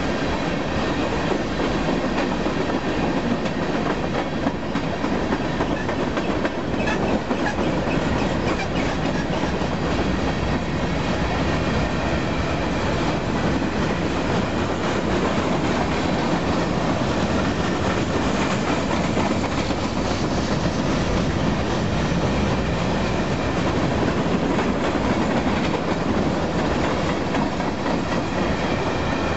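Freight train cars rolling past close by: a steady rumble with the clatter of steel wheels on the rails.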